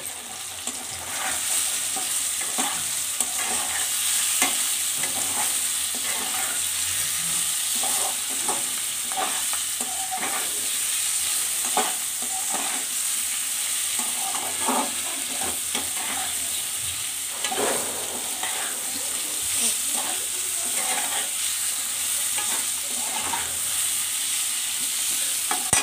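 Chunks of half-boiled potato frying in hot mustard oil in a metal kadai, sizzling steadily, while a metal spatula stirs them with irregular scrapes and knocks against the pan.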